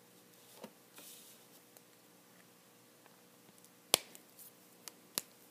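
Copic markers being handled and swapped at a desk: a faint scratch on paper about a second in, then a few sharp plastic clicks, the loudest just before four seconds in.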